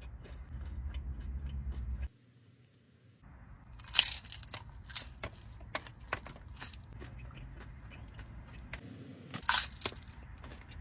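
Biting into and chewing a crunchy taco shell, close to the microphone: a series of crisp crunches, the loudest bite about four seconds in and another loud one near the end.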